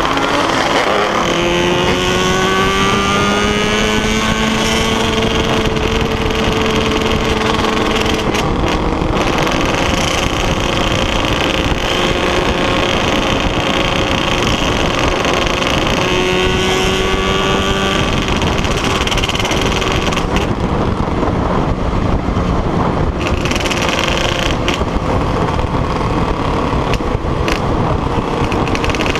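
Yamaha two-stroke motorcycle engines bored out to 421cc running hard, the engine pitch rising as one accelerates about a second in and again around the middle, over a constant loud rush of noise.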